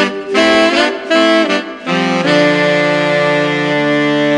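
Background music with a reedy wind-instrument lead: a few short notes, then a long held chord from about two seconds in.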